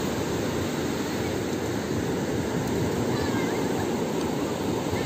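Steady rush of small waves breaking and washing up a sandy beach, with faint children's voices near the end.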